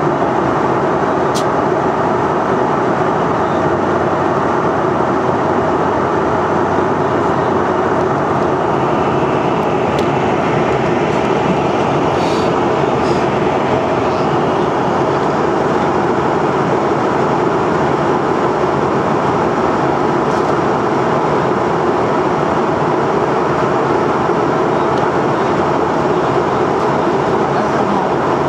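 Steady cabin noise inside a Canadair Regional Jet 700 in flight: even airflow and engine noise from its rear-mounted turbofans. A few faint clicks are heard over it.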